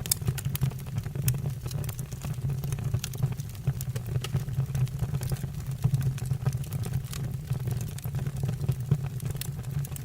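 Wood fire burning in a fireplace, with a steady low rumble of flame and frequent irregular sharp crackles and pops from the burning logs.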